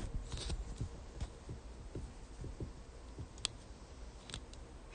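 Camera handling noise: soft bumps and rustling as the camera is moved and settled, with a few sharp clicks.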